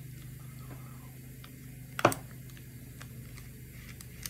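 Light metallic ticks and clicks of a T-handle hex key backing a bolt out of a small engine's intake manifold, with one sharper click about two seconds in. A steady low hum runs underneath.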